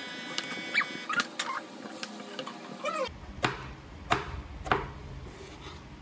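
Short animal calls, each a quick rising-and-falling cry, over steady background music. After a sudden cut about halfway, three sharp clicks or knocks follow, about two-thirds of a second apart.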